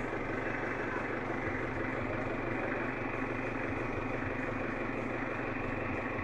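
Kia Bongo Frontier engine idling steadily at an even speed, heard from inside the cab.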